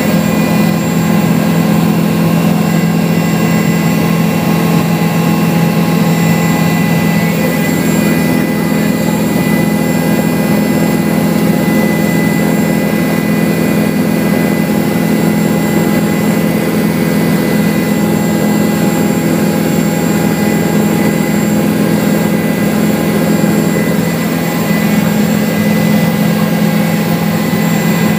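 Helicopter in flight, heard from inside the cabin: a loud, steady drone of engine and rotor with a constant low hum.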